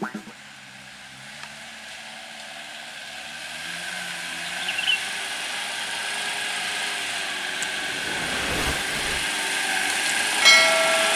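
The engine of a loaded 1991 Chevrolet pickup, working up a muddy forest track and growing steadily louder as it approaches, its revs rising and falling. Near the end comes a brief, loud high tone.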